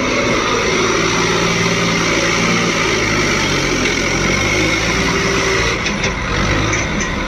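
New Holland 3630 tractor's three-cylinder diesel engine running steadily while it powers the front loader lifting a grab-bucket of cotton.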